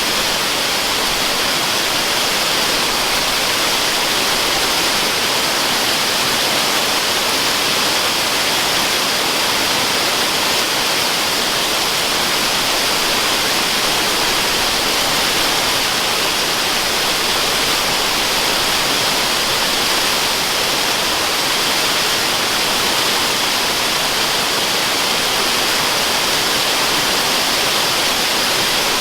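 Steady, unbroken rushing of a waterfall, an even hiss weighted toward the high end with little deep rumble.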